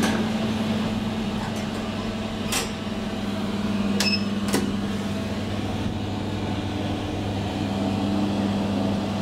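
Steady electrical hum inside a 2012 SMW traction elevator car as it travels, with a few light clicks. A short beep about four seconds in comes as a car button is pressed.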